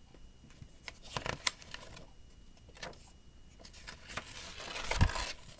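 A picture-book page being handled and turned: a few faint clicks at first, then a paper rustle swelling about four seconds in and ending in a soft thump as the page settles.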